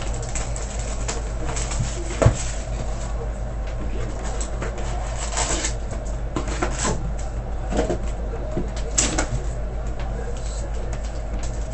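Sports card hobby boxes and packs being handled and opened: irregular crinkling and rustling of wrapping with light clicks, and one sharp knock about two seconds in, over a steady low hum.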